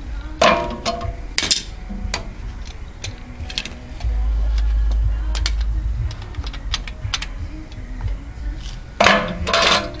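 Metal tools clicking and clinking against a rear brake caliper as the piston is twisted back in with a wide-nose wrench while a C-clamp presses on it. The clinks come in clusters, with short metallic ringing, about half a second in and again near the end, and a low rumble for about two seconds in the middle.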